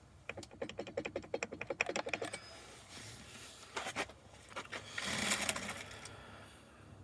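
A rapid run of ratcheting clicks, about a dozen a second for roughly two seconds, then scattered clicks and a scraping rattle of hands working on a chainsaw.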